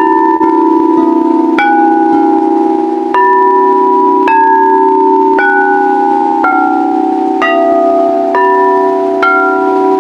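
Singing bowls struck one after another, roughly once a second, each strike ringing on in clear overlapping tones over a steady low drone.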